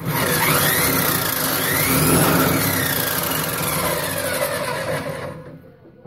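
A circular saw's electric motor spins a homemade wood-chipper drum of stacked blades through a shaft on a spin test, with a whine that rises and falls in pitch. It winds down and fades out near the end. The drum spins freely.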